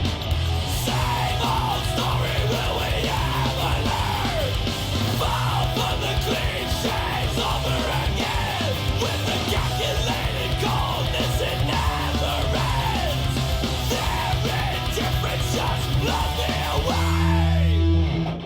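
Heavy metal music with yelled vocals over a steady, dense band, cutting off abruptly at the end.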